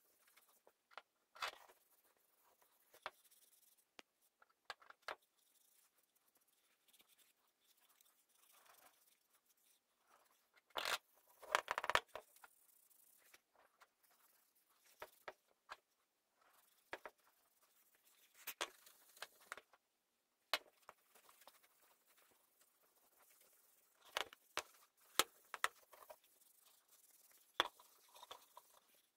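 Hand rubbing a cloth over a wooden cutting board, faint scraping spells with scattered light knocks and clicks as the board is turned and shifted on the bench; the loudest rubbing comes about eleven to twelve seconds in.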